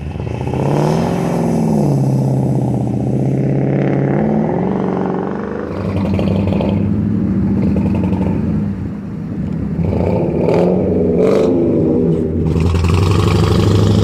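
Mercury Grand Marquis 4.6-litre V8 exhaust, heard from behind the car, revving up and down as it drives off-road, with steady stretches between. A couple of sharp clatters come about ten seconds in.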